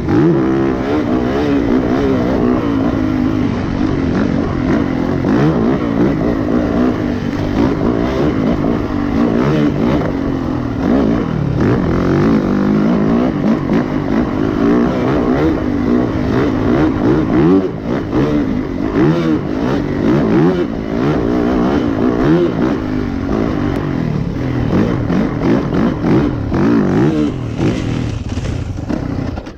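Yamaha YZ450FX single-cylinder four-stroke dirt bike engine under hard riding, revving up and down with the throttle. Frequent short knocks and clatter are heard over it, heaviest in the second half.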